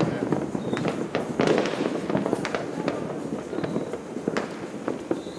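Fireworks and firecrackers going off in a dense, irregular barrage of overlapping bangs and crackles, with a louder cluster of bangs about a second and a half in.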